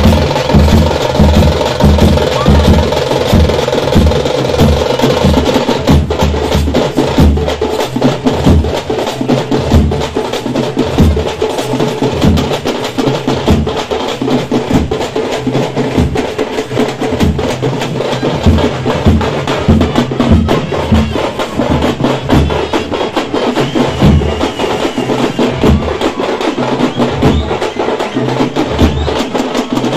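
Procession drum band of large frame drums beaten with sticks, playing a fast, loud, driving rhythm with heavy, evenly repeating beats.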